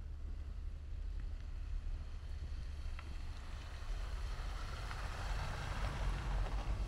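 Wind buffeting the microphone in a steady low rumble, with a rushing noise that grows louder from about four seconds in.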